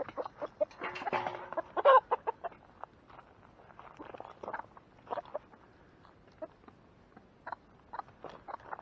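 Chickens clucking, with a louder call about a second in, among many quick light taps and clicks.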